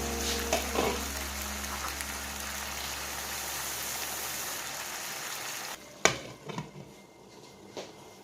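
Food frying in hot oil, a steady sizzle that stops suddenly near the end, followed by a few sharp clicks.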